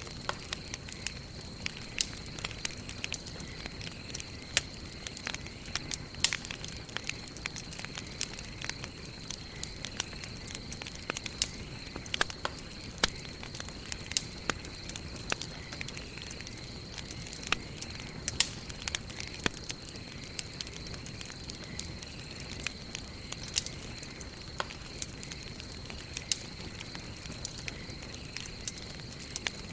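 Wood campfire burning, with a steady hiss and frequent irregular sharp pops and crackles from the burning logs. A faint steady high whine sits behind it.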